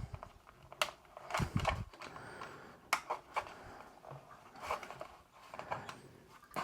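Plastic clicks and rubbing as PTFE tubes are pushed into the push-fit connectors of a Bambu Lab AMS 2 Pro's filament hub, with several sharp clicks spread a second or two apart.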